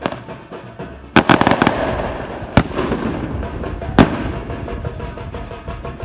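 Background music with a steady beat, broken by a rapid string of sharp, loud bangs about a second in, followed by two single bangs.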